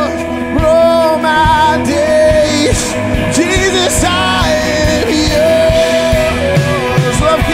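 Live worship band playing a rock-style song: a male lead vocal sings over electric guitars and a drum kit.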